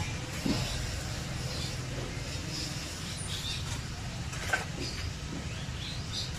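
Steady low rumble of distant road traffic, with short, faint high chirps scattered through it and a sharp click about four and a half seconds in.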